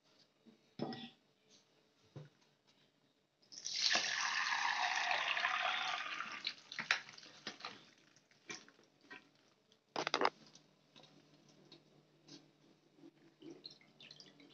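Water running for about three seconds and then tailing off, with scattered clicks and knocks of kitchen handling and a short clatter about ten seconds in.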